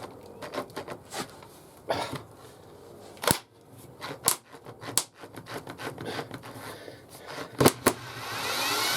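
Clicks and sharp knocks of wood and hardware being handled, then near the end a power drill whirring up as it starts to drive a screw into the wooden sled.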